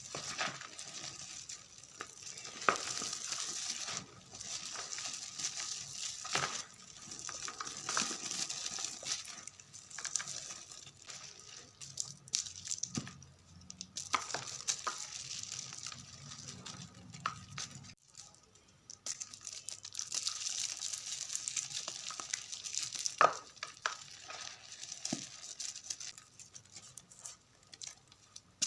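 Gym chalk mixed with confetti being crumbled in the hands: gritty crunching and crackling in bouts of several seconds, with short pauses and a few sharp snaps.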